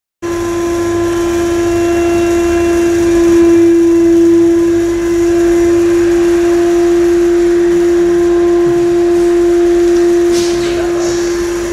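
Vacuum pump running with a steady hum (one strong pitch with fainter overtones over a low rumble), drawing vacuum on the bagged dinghy hull laminate for resin infusion.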